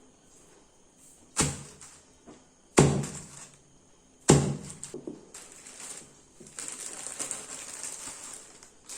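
Lumps of rock sugar and palm sugar candy struck three times on a plastic sheet: hard knocks about a second and a half apart. From about six and a half seconds in comes a steady rustling.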